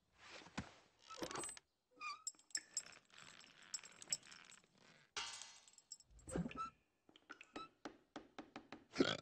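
Kitchenware clattering: pots and bowls tossed about and knocking together, with a quick run of clinks and one loudest knock near the end.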